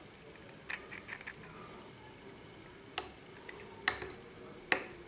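A handful of faint, separate clicks and taps from broken eggshells and a steel spoon being handled and set down on a tabletop.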